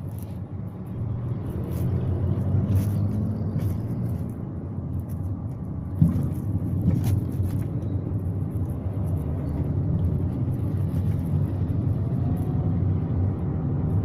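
Mitsubishi Mirage G4 on the move: a steady low road-and-running rumble with scattered light rattles and clicks from the front end, and one sharper knock about six seconds in. The rattle comes from a loose front brake caliper pin on the driver's side.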